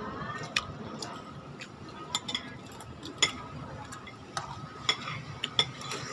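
Metal spoons and forks clinking and scraping against ceramic plates while eating rice, a scatter of sharp, irregular clicks.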